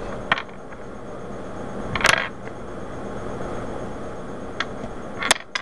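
Loose plastic Rubik's Cube pieces being picked up and handled, giving about five sharp clicks and clatters: one near the start, a longer rattle about two seconds in, and a few quick clicks near the end.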